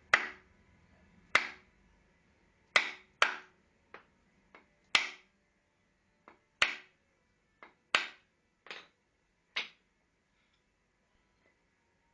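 About a dozen sharp hammer strikes at uneven intervals, some in quick pairs, stopping about ten seconds in.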